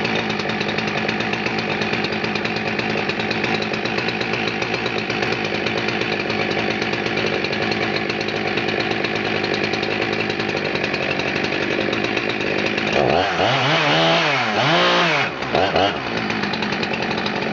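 Husqvarna 372 XPW two-stroke chainsaw running steadily, then revved up and back down twice about thirteen seconds in before settling again.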